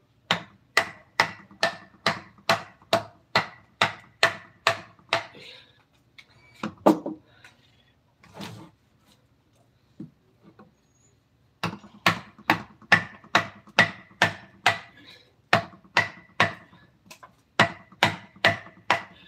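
Mallet striking a woodcarving chisel, a steady run of sharp knocks about two to three a second with a slight ring to each. The strokes break off for a few seconds midway with only a few scattered knocks, then resume at the same pace.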